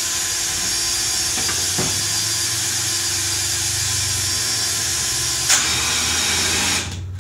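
Cordless drill spinning a ball screw, driving the gantry nut along the screw. It runs steadily, smoothly and without binding, with one sharp click about two-thirds of the way in and a brief dip in the sound just before the end.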